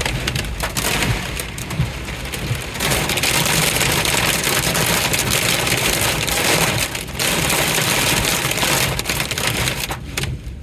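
Heavy rain and strong, gusting wind from a severe thunderstorm beating on a truck, heard from inside the cab as a loud, surging rush.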